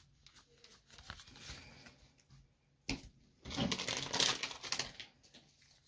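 Magic: The Gathering cards being flipped through and sorted by hand: a run of light card clicks and snaps, one sharper snap about three seconds in, then a louder rustle lasting about a second and a half.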